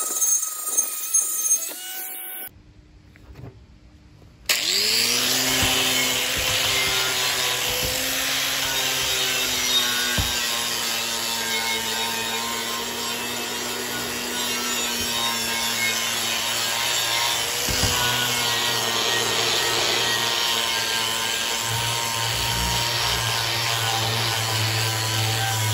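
Corded angle grinder with a flap disc grinding paint and rust off a curved steel sheet: a steady motor whine over a harsh rasp. There is a brief quiet gap early on, then the grinder spins up again about four and a half seconds in and grinds steadily.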